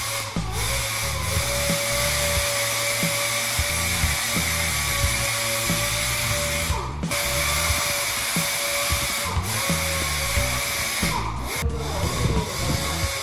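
A steady high-pitched machine whine with hiss, under background music, broken by a few brief dropouts in the second half.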